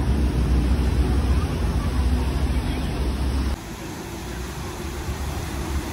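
Wind rumbling on the phone's microphone over a steady outdoor hiss. About three and a half seconds in, the sound cuts abruptly to a quieter, thinner hiss with less rumble.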